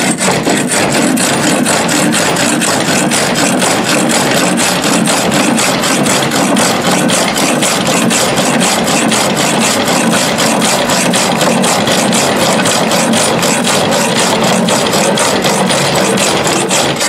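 Coarse-toothed handsaw cut down from a one-man bucking saw, rasping back and forth through a log in a steady run of fast strokes.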